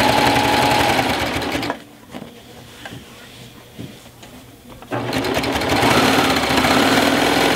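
Baby Lock Triumph serger stitching a 4-thread overlock seam through quilt binding and batting, with its knife blade trimming the edge, in a fast steady whir. It stops a couple of seconds in, leaving a few faint clicks, and starts up again about five seconds in.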